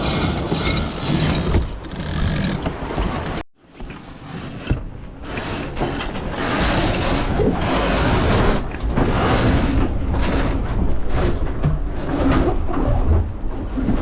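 Sailing yacht winch ratcheting as a line is worked. The sound breaks off sharply once, about three and a half seconds in.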